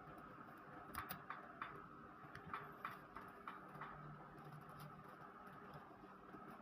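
Light, irregular clicks and taps, about a dozen over the first four seconds or so, from hands and small tools working on a laptop's plastic case, over a faint steady hum.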